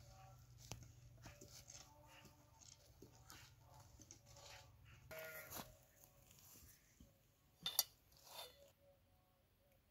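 Faint clinks and knocks of steel bowls and a metal tray being handled, with two sharper clicks near the end.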